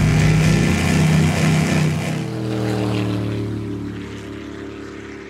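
Performance powerboat's engines running at high speed, the pitch sliding down about two seconds in as the sound fades away.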